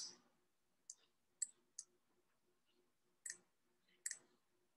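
Faint computer mouse clicks, about five of them at irregular intervals.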